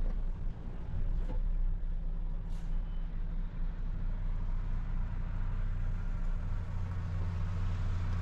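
Heavy truck's diesel engine running steadily under way, heard inside the cab as a low drone, with a short hiss about a second in and another about two and a half seconds in.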